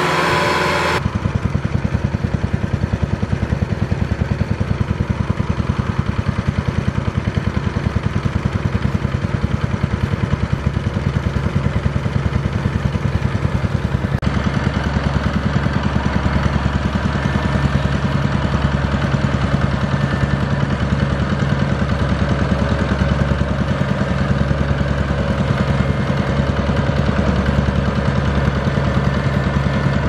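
Kubota DC-70 Plus crawler combine harvester's diesel engine running steadily with a fast, even pulse as the machine moves, the tone shifting slightly about a second in and again about halfway through.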